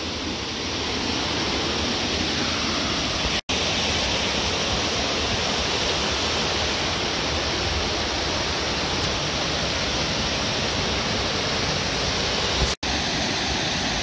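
Creek waterfall pouring over a wide rock ledge, a steady rushing of water, cut off for an instant twice.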